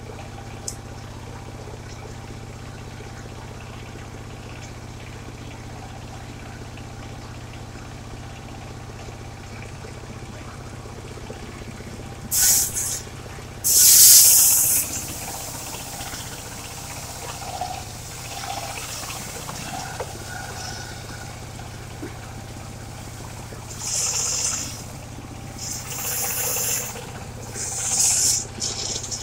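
Engine of a mobile circular sawmill running steadily, with short loud hissing rushes about twelve and fourteen seconds in and several more near the end.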